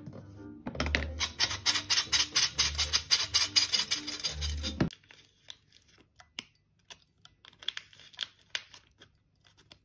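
Metal flour sifter being worked over a steel mixing bowl: a fast, even, rhythmic metallic scratching at about six strokes a second for about four seconds, stopping abruptly. After it come faint, scattered small ticks and rustles.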